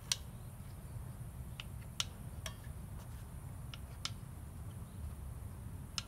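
About six sharp, scattered clicks of wood as a crooked stick is worked by hand, over a low steady rumble.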